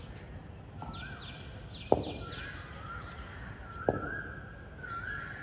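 Birds calling repeatedly, with runs of short falling chirps and rising whistled notes, while two sharp knocks ring out about two seconds apart.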